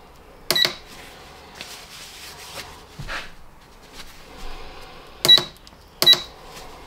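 Metal clinking against metal: three sharp ringing strikes, one about half a second in and two close together near the end, with softer knocks and handling sounds between.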